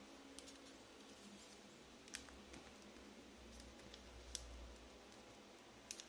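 Near silence broken by a handful of faint, sharp clicks and ticks, typical of sheets of paper being handled and creased while folding a paper plane.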